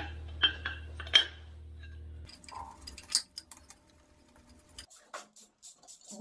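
Metal hand tools and engine parts clinking: a few sharp metallic clinks in the first second or so, then a run of light, irregular clicks and ticks. A steady low hum runs underneath and stops about two seconds in.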